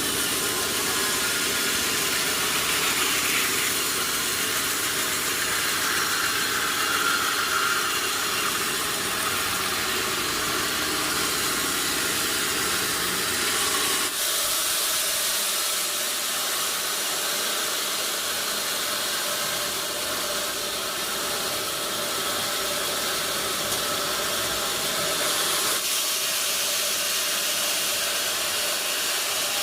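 Sawmill machinery running with a steady hissing noise. The sound changes abruptly about halfway through and again near the end.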